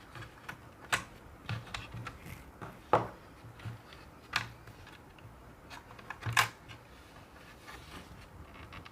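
Scattered small clicks and taps of hands handling the parts of an opened laptop, with a few sharper clicks about one, three, four and a half and six seconds in.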